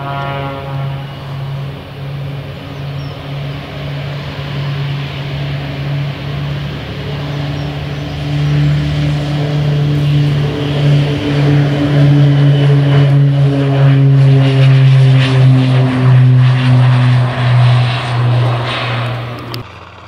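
Propeller engine drone from a Beechcraft King Air 200 twin turboprop on the runway, steady at first and then growing louder, with a slight downward drift in pitch as it passes. It cuts off suddenly near the end.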